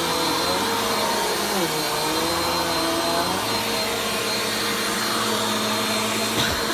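Vacuum cleaner running steadily during slow vacuuming, its motor pitch wavering up and down. There is a brief knock near the end.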